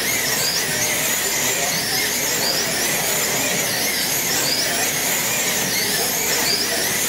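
Wing slot cars racing on a multi-lane banked track, their small electric motors giving a high whine that swoops up and down in pitch over and over as the cars accelerate and brake through the laps, over a steady hiss.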